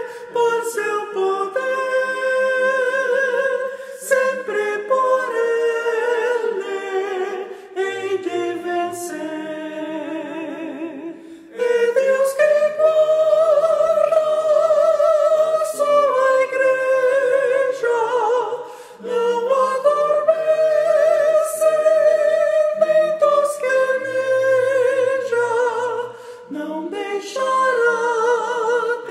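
An a cappella choir sings a hymn in four parts, with the soprano line to the fore. The singing comes in long held phrases with short breaths between them, about twelve, nineteen and twenty-six seconds in.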